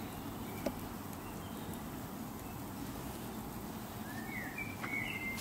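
Quiet, steady background noise with a single small click less than a second in, then a few short bird chirps near the end.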